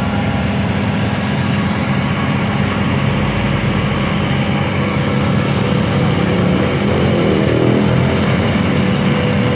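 A train passing a level crossing: a steady rumble that grows slowly louder toward the end.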